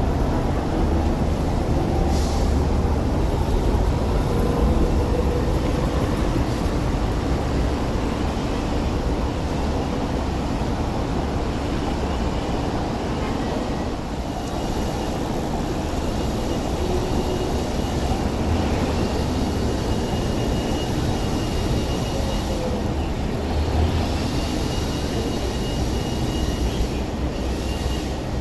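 Fifth-generation Peak Tram funicular tramcars running on the track: a steady rumble of the car rolling on the rails and the haul cable running over its track pulleys. A faint, high, steady whine joins about halfway through as the second tramcar approaches.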